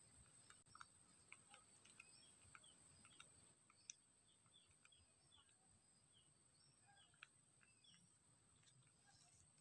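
Near silence: faint outdoor ambience with scattered soft, high bird chirps, several of them short falling notes, a few light clicks, and a thin steady high whine underneath.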